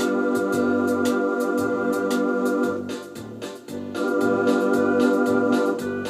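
Vintage Kawai XR9000 electronic organ playing held chords in two phrases with a short dip in between, over a steady ticking beat of about four a second and a pulsing bass line.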